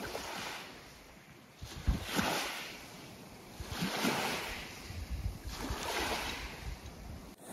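Small waves lapping and washing onto the shore of a lake, swelling and fading about every two seconds.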